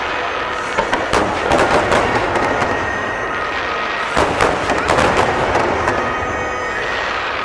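Fireworks display: a string of bangs and crackling bursts following one another irregularly.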